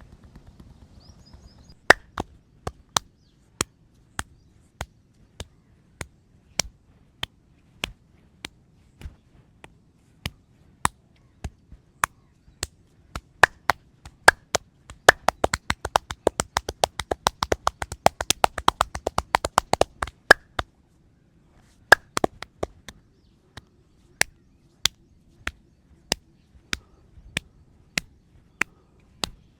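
Percussive hand strikes of a traditional Indian head massage, the masseur's chopping and clapping hands on the head. Sharp single smacks come at a little under a second apart, then speed into a fast flurry of rapid strikes in the middle, stop briefly, and resume at the slower pace.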